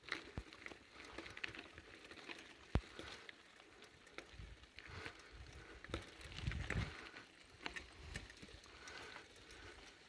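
Footsteps on a dirt and gravel trail: faint, irregular crunches and clicks, mixed with the phone being jostled in the hand.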